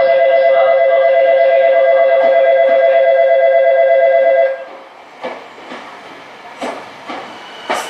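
An electric departure bell on the station platform rings loudly and steadily, then cuts off suddenly about four and a half seconds in. After that a Tokyu 5000 series train rolls slowly alongside the platform, with a few sharp clicks from its wheels.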